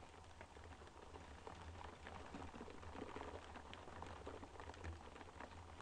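Rain tapping on a window pane: many small irregular drip ticks, faint, over a low steady rumble.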